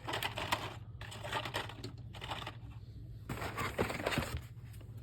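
Carded Hot Wheels cars being handled and sorted out of the cardboard case: plastic blister packs clicking and card rustling, in three spells of quick clicks.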